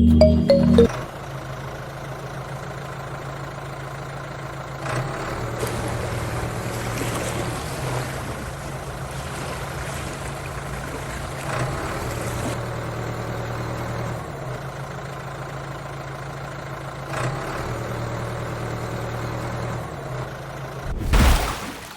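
An engine running steadily at a low hum, its level stepping up and down every few seconds, with a short loud rush of noise near the end.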